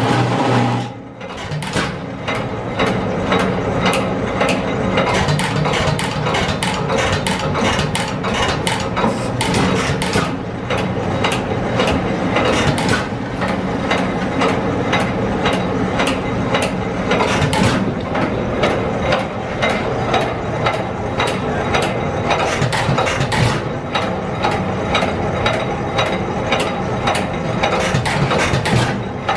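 A 7.5 hp Economy stationary gas engine being spun up by a small pony motor. A steady low engine sound drops away about a second in, and is followed by a fast, even clicking and clattering of machinery as the engine's flywheels turn.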